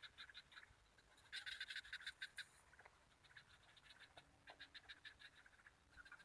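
Faint calls of small animals: repeated bouts of fast, evenly spaced clicking pulses, the loudest bout about a second in.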